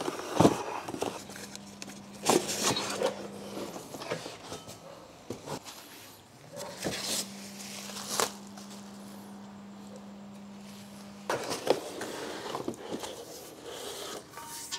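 Unboxing galvanized steel rack parts: cardboard boxes and plastic wrapping rustled, with scattered knocks and scrapes as the steel parts are handled. A low steady hum comes in twice, for a few seconds each time.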